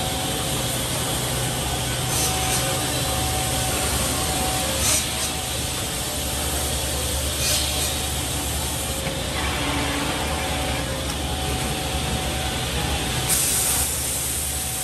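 Woodworking corner-bracket cutting and drilling machine running with a steady motor hum over workshop machinery noise, with several short hissing bursts.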